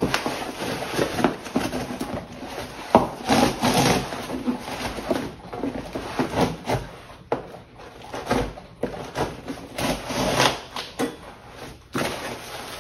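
Cardboard shipping box being opened and handled: flaps pulled back and cardboard scraping and rubbing, with irregular knocks and thumps.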